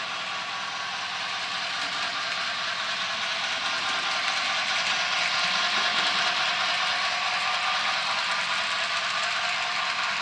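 HO scale model freight train, hauled by a Bachmann Spectrum 2-6-0, rolling past on the layout's track: the steady rolling noise of wheels on the rails grows louder toward the middle as the cars pass close, then eases a little.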